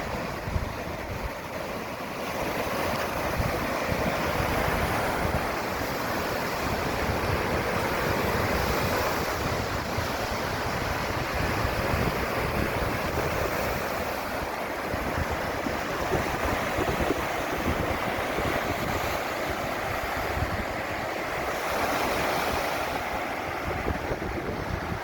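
Waves breaking and washing up on a sandy beach in a steady, continuous surf, with wind buffeting the phone's microphone in low rumbling gusts.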